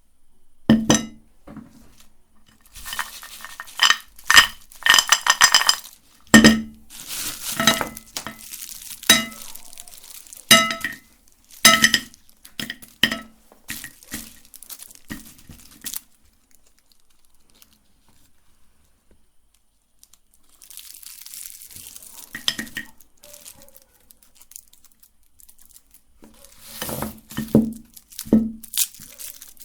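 Hard objects clinking and knocking against glass or dishware in irregular bursts, each strike ringing briefly. Around the middle there is a nearly quiet stretch, then softer rustling and a few more clinks near the end.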